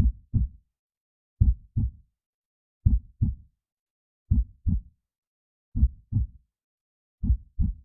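Heartbeat sound effect: a slow, steady lub-dub of low paired thumps, a double beat about every second and a half (around forty beats a minute), with clean silence between the beats.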